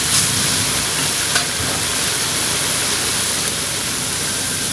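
Ground beef simmering in its liquid in a stainless steel wok, a steady sizzling hiss.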